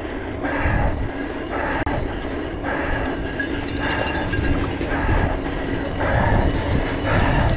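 Mountain bike ridden over rough ground: tyres rumbling and the bike rattling, with a regular swell about once a second.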